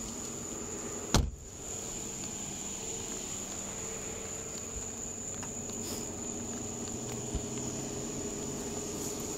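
Steady background noise: a constant high-pitched whine over a low steady hum, with one sharp click a little over a second in.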